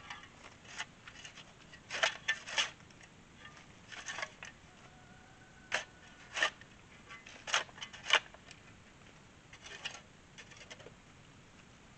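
Shovel blade chopping and scraping into wet red mud, a string of short sharp strokes at uneven intervals, sometimes two or three in quick succession.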